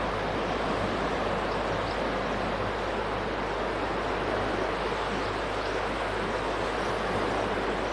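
Floodwater of the swollen Mara River rushing steadily, a constant even noise.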